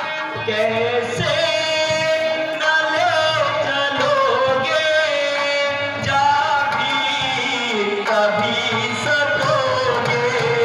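A Ramlila actor's verse sung in long, drawn-out, gliding notes into a stage microphone, with musical accompaniment underneath.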